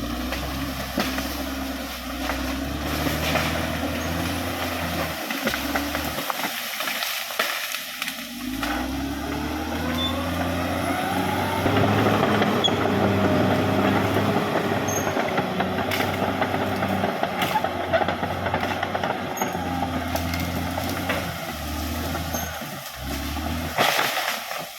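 Caterpillar D6R XL bulldozer's diesel engine running under load, its pitch rising a few seconds in and holding higher and louder, with scattered clanks.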